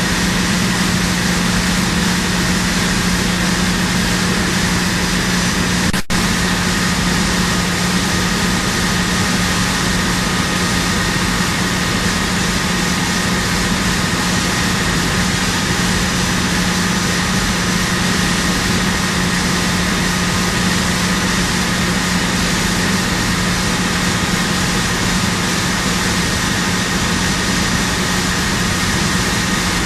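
Steady mechanical drone of running machinery: a constant low hum with a few faint high whining tones, cut by a brief dropout about six seconds in.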